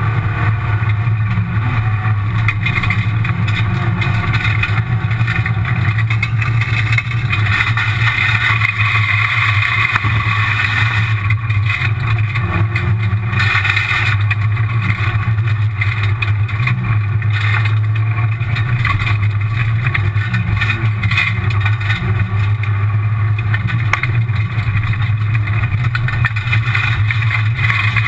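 Rally car driven at speed on a gravel stage, heard from inside the stripped-out cabin: the engine runs steadily under load over a constant rush of tyre and gravel noise.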